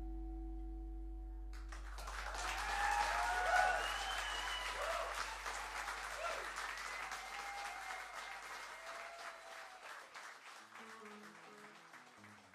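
The band's final held chord rings out over a deep bass note and fades. About two seconds in, the audience breaks into applause with whistles and cheers, which slowly dies down. Near the end a few quiet plucked guitar notes begin.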